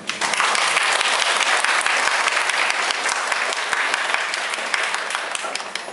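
Audience applauding. The clapping starts abruptly and dies away near the end.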